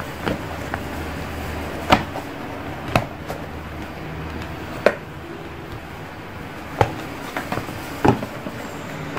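Handling of a phone box's contents: about five sharp clicks and knocks of cardboard and plastic parts being lifted and set down, spaced a second or two apart, over a steady low hum.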